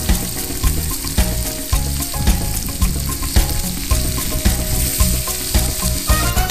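Onions and chopped vegetables sizzling as they fry in oil in a frying pan over a wood fire, with a fine steady crackle, under background music with a regular beat.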